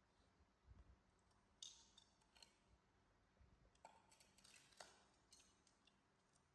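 Near silence broken by faint, sharp clicks and smacks: a few about two seconds in and a denser run just past the middle, typical of an animal's lip smacking.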